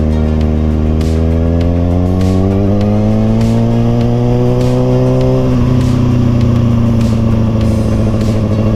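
Vehicle engine running at low road speed, its pitch creeping up over the first five seconds, easing slightly, then holding steady.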